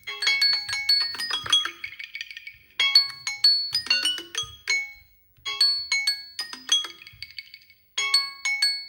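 Samsung Galaxy phone alarm tone: a bright melody of short, quickly fading notes, a phrase that repeats about every two and a half seconds with a brief pause between repeats.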